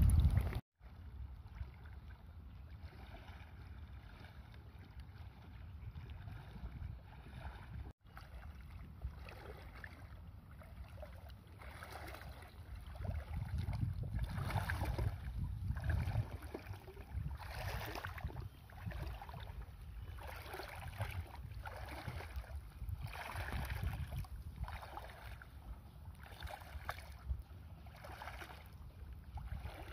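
Water sloshing and swishing as legs wade through waist-deep sea water, in repeated strokes about once a second that grow clearer partway through, over a steady low rumble of wind on the microphone.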